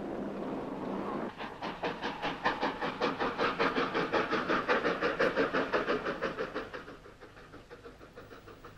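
Steam train crossing a railway bridge: a fast, even rhythmic beat of several strokes a second starts just over a second in and fades away about seven seconds in.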